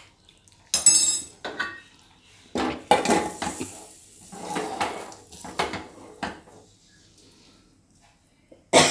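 Pressure cooker and its metal lid clattering as the lid is set on and closed: a string of separate metal clanks and scrapes, one ringing clink about a second in.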